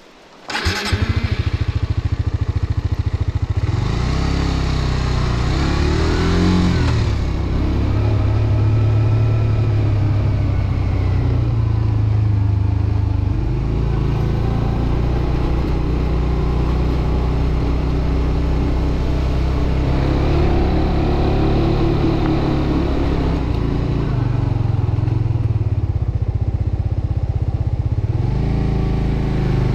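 Suzuki GSX-R125's single-cylinder engine, which comes in suddenly about half a second in and then runs and revs, its pitch rising and falling several times as the motorcycle rides.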